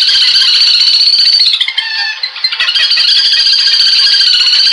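Recorded bird call played loud through a 5 W, 8-ohm horn tweeter on a rectangular horn, used as a night bird-trapping lure: a shrill, fast-trilling call with no low end, breaking off briefly about two seconds in and then resuming.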